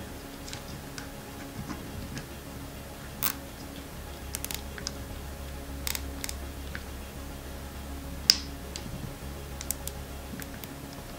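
Nylon zip tie being threaded and pulled tight by hand around a drone arm: irregular small ticks and clicks, the loudest a sharp click about eight seconds in, over a low steady hum.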